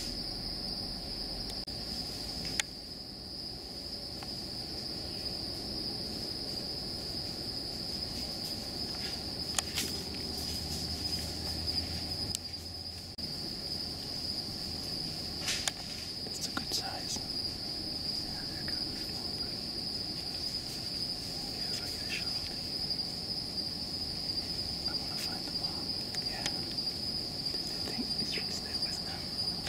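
A steady, unbroken high-pitched insect trill, likely crickets, with occasional faint snaps and rustles scattered through it.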